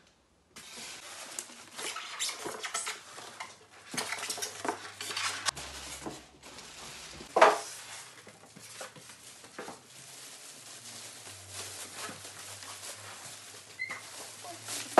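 Plastic bag wrapped round a food processor crinkling, and polystyrene foam packing rubbing, as the machine is lifted out of its packing. There is a sharp knock about halfway through.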